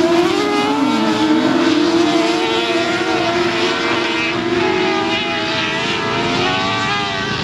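Several F600 autograss buggies racing with their 600cc motorcycle engines at high revs. Their overlapping notes rise and fall in pitch as the buggies accelerate and lift off, fading a little near the end.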